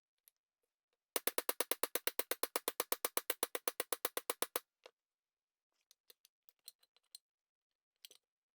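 Rapid, even run of strikes, about ten a second for some three and a half seconds, driving a bearing onto the transfer case output shaft through a length of pipe on its inner race. A few light knocks follow near the end as the bearing seats.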